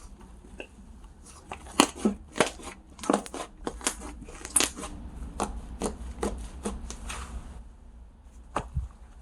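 Slime being squeezed and pressed by hand, giving a run of sharp clicks and pops from trapped air, then one more pop near the end.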